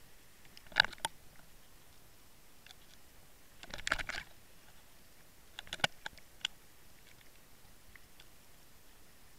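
Underwater clicks and short rattles from a fishing rig and its camera housing shifting on the seabed: a sharp pair of clicks about a second in, a longer rattle around four seconds as the camera tips over, and a few more clicks near six seconds.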